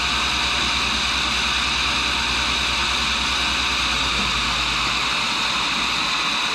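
1942 Cincinnati tool and cutter grinder running, its cup wheel spinning with a steady hiss over a low hum. The low hum fades about five seconds in.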